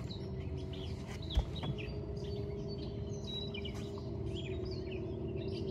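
Small birds chirping and tweeting in short, scattered high calls over a steady low hum, with a single knock about a second and a half in.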